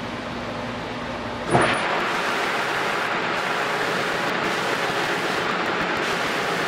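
A wooden drum hoop being sanded on a power sander. A steady machine hum, then about a second and a half in a knock as the hoop meets the sander, followed by a louder, steady sanding hiss.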